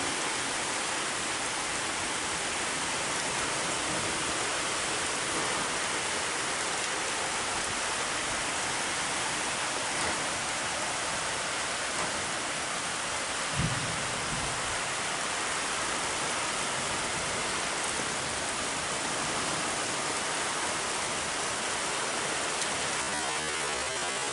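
Steady rain falling, an even hiss that holds at one level throughout, with one brief low thump about halfway through.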